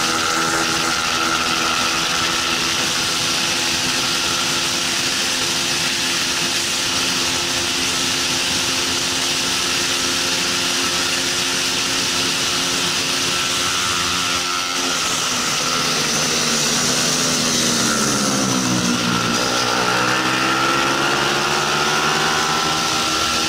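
Bajaj Pulsar 200 NS single-cylinder engine at racing revs, heard from on board the bike with wind rushing past. About fifteen seconds in, the engine note falls as the bike slows, then climbs again as it accelerates.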